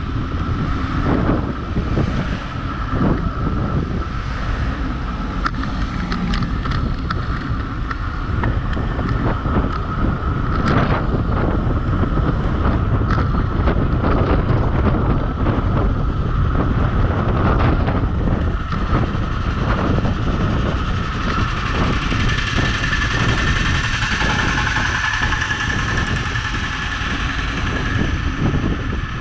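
Wind buffeting the microphone on a fast downhill bicycle ride: a loud, continuous rushing, with a steady thin whine running underneath.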